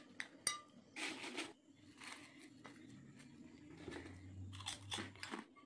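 Crisp kerupuk crackers being snapped into pieces by hand: several faint, short crunching crackles, the longest about a second in.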